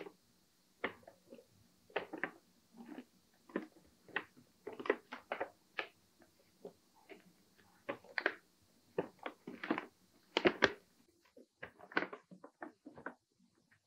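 Plastic mailer wrapping of a parcel crinkling and rustling in irregular bursts as it is handled and turned over. The loudest crinkles come a little after ten seconds in, and the sounds stop just before the end.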